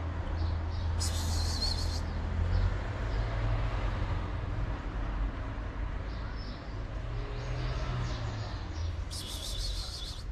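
Outdoor background: a low steady rumble, with two short bursts of high-pitched chirping, one about a second in and one near the end.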